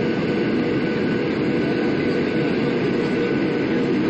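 Boeing 737-800 on approach to landing, heard inside the cabin beside the engine: its CFM56 turbofans and the rush of air past the fuselage make a low, even rumble with a faint steady whine above it.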